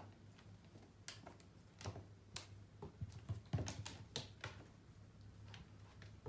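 Irregular light taps and soft thumps on a wooden floor as a kitten pounces and scrambles after a wand toy, its paws and the toy striking the boards.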